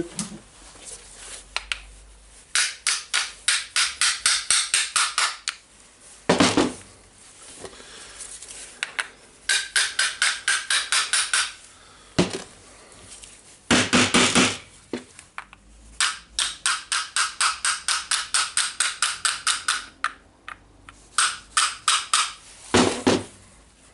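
A small steel hammer tapping quickly on the jammed steel anvil of a Milwaukee 1/2-inch impact wrench's hammer mechanism, in runs of about five taps a second, with a few heavier knocks between the runs. The taps are meant to free an anvil that is stuck badly in the hammer case, and it does not come free.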